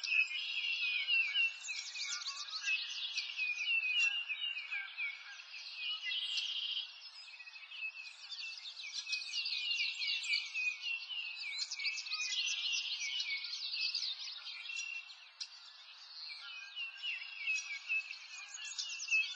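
Dense chorus of small songbirds chirping and trilling, a continuous stream of quick high chirps with no low sounds beneath.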